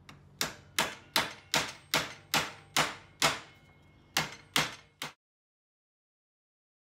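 Hammer striking 1¼-inch nails into a plywood birdhouse panel: about a dozen sharp blows, two or three a second, with a brief pause near four seconds. The sound cuts off to silence about five seconds in.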